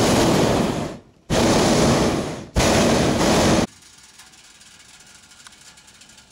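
Hot air balloon's propane burner firing in loud blasts that start and stop abruptly. One blast ends about a second in, and two more of just over a second each follow. The last cuts off sharply about three and a half seconds in, leaving only a faint hiss.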